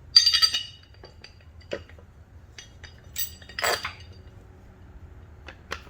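Steel bolts and a steel mounting plate clinking and clanking against each other and the plow blade as the bolts are fed through the back of the plate. A loud cluster of clinks comes right at the start, followed by scattered single clinks and a heavier clank about three and a half seconds in.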